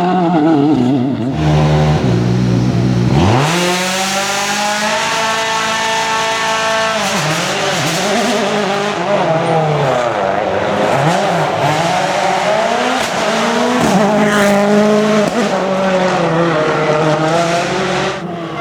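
A World Rally Car's turbocharged engine revving hard: its pitch climbs steeply about three seconds in and holds high, then rises and falls again and again as the driver changes gear and lifts off, climbing once more near the end.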